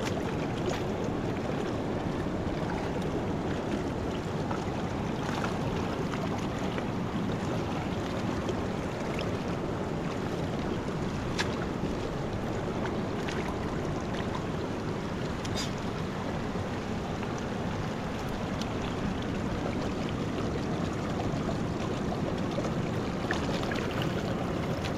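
Mountain river water rushing steadily, with a few faint clicks.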